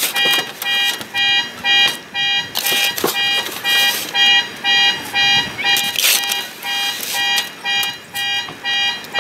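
Car alarm beeping steadily, about three pitched beeps a second, the real sound sped up. A few scrapes of a trowel working wet concrete mix come through among the beeps.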